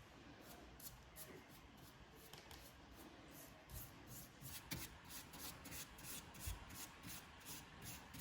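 Faint rubbing and handling sounds, with a few soft knocks about four, five and six and a half seconds in.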